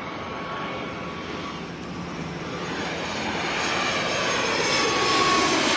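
Jet engines of a Boeing 737 airliner running at high power on its take-off roll, a steady roar with a thin high whine that grows steadily louder.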